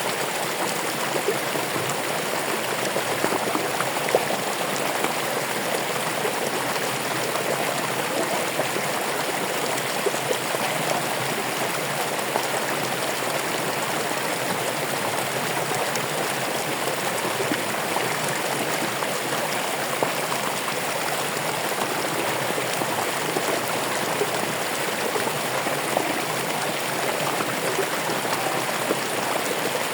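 Running water flowing steadily: an even rushing with faint scattered splashes and drips.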